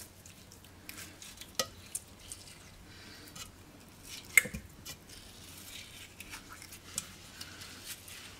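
A spoon scooping the flesh out of halved kiwis into a plastic blender beaker: faint scraping and soft squishing, with scattered light clicks and knocks, the sharpest about four and a half seconds in.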